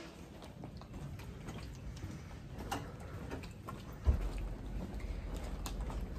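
Footsteps on a hard floor, a sharp click roughly every two-thirds of a second. About four seconds in there is a low thump, followed by a steady low rumble.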